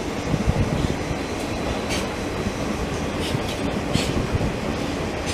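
Athens Metro Line 1 electric train running past on open track: a steady rumble of wheels on rails, with a few sharp, high clicks from the wheels.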